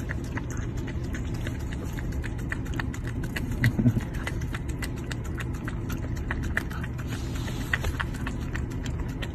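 A small dog lapping whipped cream from a cup, making quick wet licking clicks over the steady low hum of a car's running engine inside the cabin. There is one short louder sound about four seconds in.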